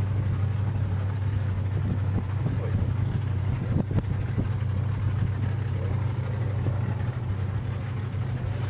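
Drag-race pickup truck's engine idling steadily at the start line, a low, even note.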